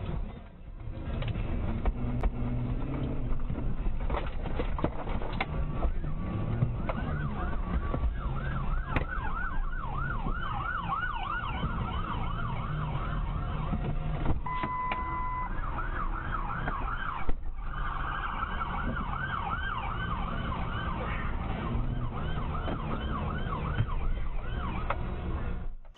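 Police car sirens in fast yelp, quick rising-and-falling sweeps that start several seconds in and keep going almost to the end, over the steady rumble of car engine and road noise. About halfway there is a brief steady tone.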